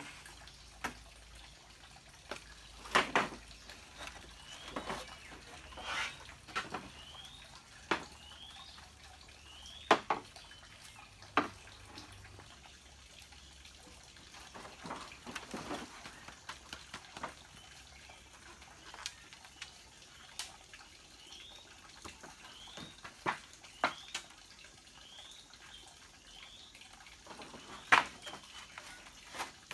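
Hollow green bamboo poles knocking and clacking against each other and the wooden frame as they are laid and shifted side by side, in irregular sharp knocks.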